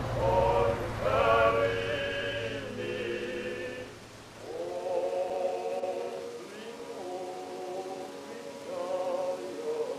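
A vocal group singing a gospel song a cappella in close harmony, on long held chords. A low rumble underneath fades away about four seconds in.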